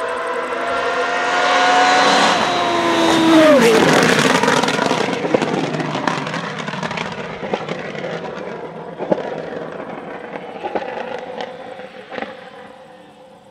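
Formula Renault 3.5 single-seater's V8 revving hard as the car approaches and passes, its pitch dropping sharply as it goes by about three and a half seconds in. It then fades as the car drives away, with a few sharp cracks from the exhaust near the end.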